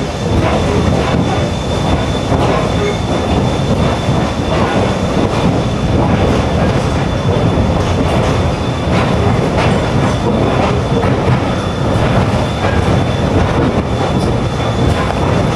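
Train rolling along as heard riding on its caboose: a steady rumble of wheels on the rails with irregular clicks from the rail joints and a thin, steady high tone.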